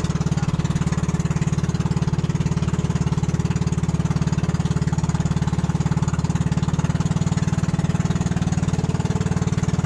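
A boat's engine running steadily under way, with a fast, even beat.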